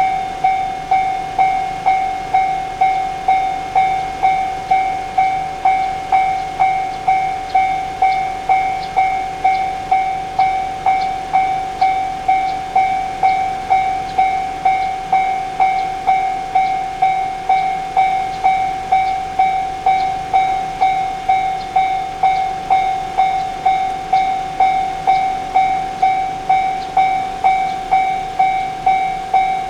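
Level-crossing warning bell ringing, an evenly repeated ding at a little under two strikes a second: the crossing's signal that a train is approaching or passing.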